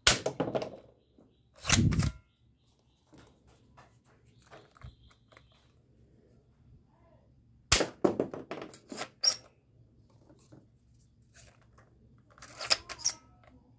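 Plastic toy gun being cocked and fired, making sharp plastic snaps and clicks. There is a snap at the start and another about two seconds in, a quick run of clicks around eight to nine seconds, and a few more near the end.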